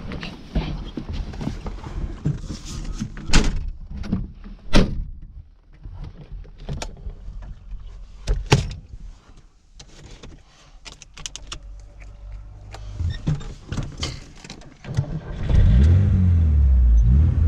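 Clicks, knocks and thunks of things being handled in and around a Lada 2106, over a low engine rumble. About fifteen seconds in, the engine becomes much louder and runs steadily.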